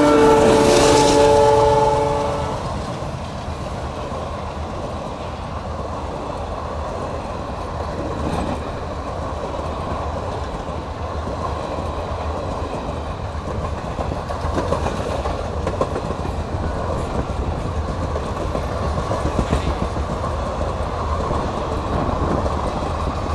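Diesel locomotive horn held for about two seconds and cutting off, then a passenger train's coaches running steadily past at close range, wheels rumbling and clattering over the rails.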